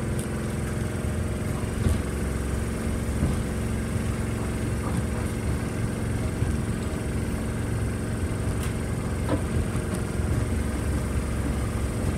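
Inside a vintage ex-Stuttgart GT4 tram while it runs: steady motor hum and low running rumble, with a few faint knocks as the wheels cross rail joints and points.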